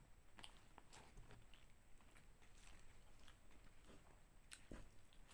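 Faint chewing and mouth sounds of a person eating a rice meal with her hand, with a few scattered soft clicks.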